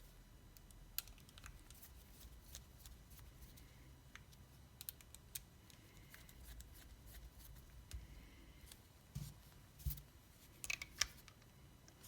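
Faint, scattered small metallic clicks and taps as a tattoo machine's body halves are fitted together and its body bolts are turned in with an Allen key, with a few louder clicks near the end.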